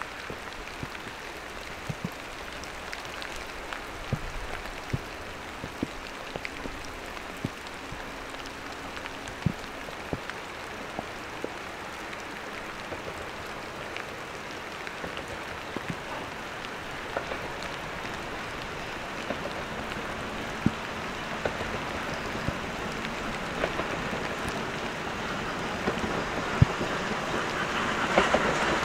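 Steam train hauled by a C10 tank locomotive approaching: a steady rushing running noise with scattered sharp clicks, growing steadily louder.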